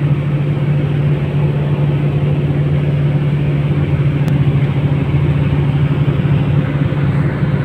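Engine and road noise of a moving vehicle heard from inside the cabin: a steady low drone with a constant hum.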